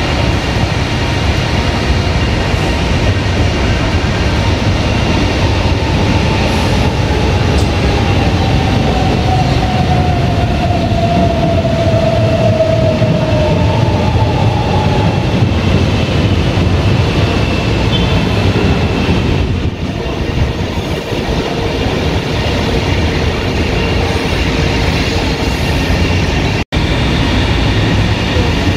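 Metro train running, with a continuous rumble and rattle from its wheels on the track. Partway through, an electric whine slides down in pitch. The sound breaks off for an instant near the end.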